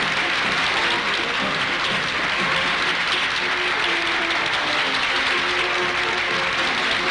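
A large crowd applauding steadily, a dense unbroken clatter of many hands.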